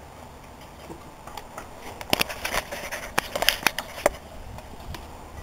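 A quick run of sharp, irregular clicks and knocks, bunched between about two and four seconds in.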